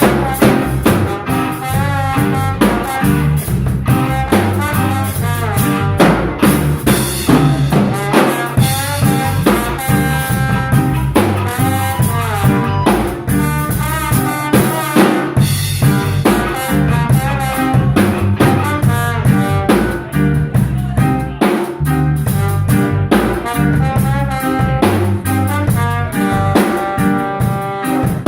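Live instrumental band playing a song, with the drum kit prominent over bass and a melodic lead line.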